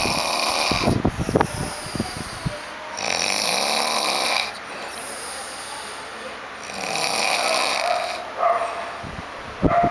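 Someone snoring: three long noisy snoring breaths about every three and a half to four seconds, with short choppy rumbling snorts in between, about a second in and again near the end.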